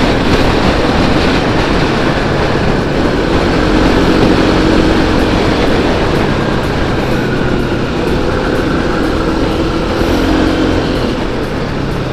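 Steady, loud wind noise on the camera of a moving motorcycle, with the engine running underneath at road speed; its note wavers slightly in pitch through the middle.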